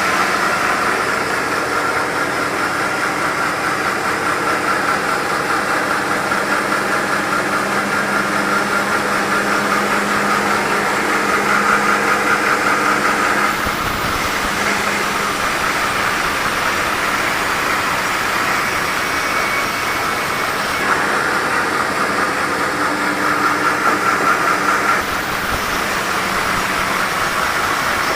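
Sawmill running, its saw cutting mahogany logs with a steady machine drone. The sound grows louder and then drops back abruptly twice, about 13 and 25 seconds in.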